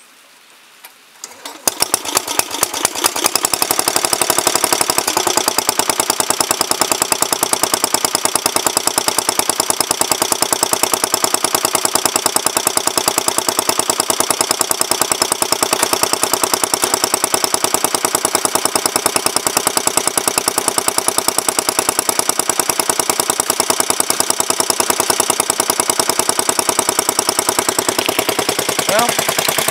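1967 Sears Suburban 10 garden tractor's 10 hp engine, cold start: the electric starter cranks it for a moment and it catches quickly, about a second and a half in. It then runs steadily with a fast, even beat.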